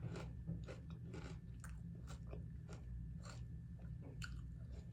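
A person chewing a mouthful of salad close to the microphone, crisp lettuce crunching in a run of bites about two or three a second.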